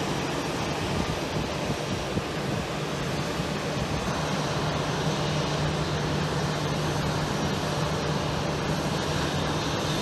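Jet airliner engines running out on the airfield: a steady rushing noise, with a steady low hum joining about four seconds in.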